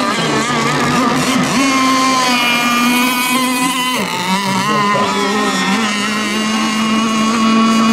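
Several radio-controlled racing boat engines running together on the water, their overlapping buzzing pitches wavering up and down as the boats race and turn, one dropping in pitch about four seconds in.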